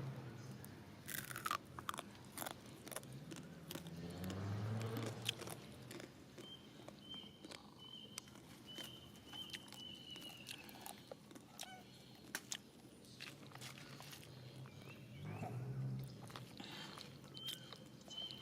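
Monkey chewing and crunching food, with many sharp irregular crunches. A short high chirp repeats in the background, and a low pitched call comes twice.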